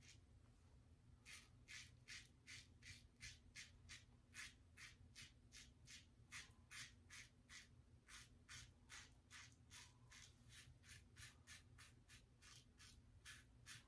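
Double-edge safety razor with a Gillette 7 O'Clock Sharp Edge blade scraping through lathered stubble in short, quick strokes, about three a second, starting a little over a second in. Faint and rasping.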